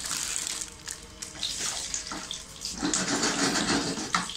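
Colourful papad (fryums) sizzling in hot oil in a frying pan, with a metal slotted spatula clicking and scraping against the pan as they are stirred.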